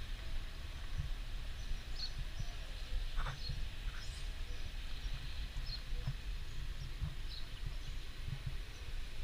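Outdoor ambience: a steady low rumble with irregular soft thumps, over which small birds chirp faintly about once a second, with one short rising call about three seconds in.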